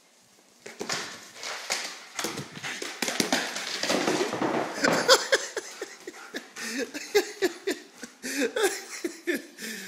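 A German Shepherd's claws clicking and scrabbling on a hardwood floor as it runs and skids, starting about half a second in and loudest in a long scramble a few seconds in. A quick run of short pitched sounds follows near the end.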